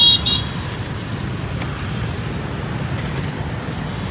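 Street traffic on a busy city road, motorbikes and cars passing, heard as a steady low rumble. A brief high-pitched tone stops within the first half second.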